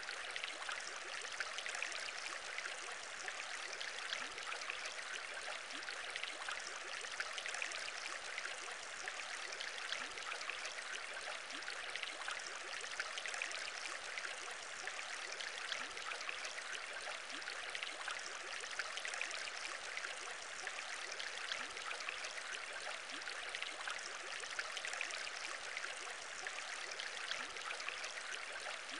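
Aquarium water bubbling: a steady trickling hiss with many small pops, unchanging throughout.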